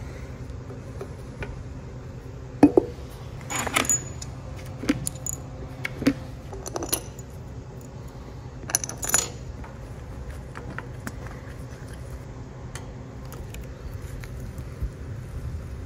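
Light metal clinks and rattles as steel bolts and an Allen key work against a machined aluminium plate being bolted onto an engine block. They come in two small clusters, a few seconds in and about halfway through, with lighter ticks in between, over a steady low hum.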